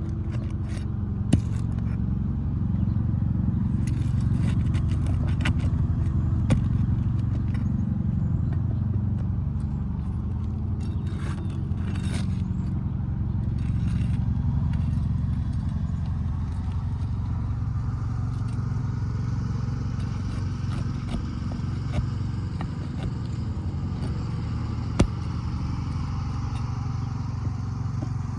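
Scraping and sharp metallic clicks of a pry bar working roofing nails loose from asphalt shingles, over a steady low rumble like a running motor.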